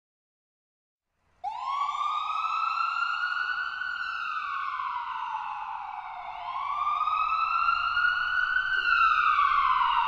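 Ambulance siren wailing, its pitch slowly rising and falling twice; it starts abruptly about a second and a half in.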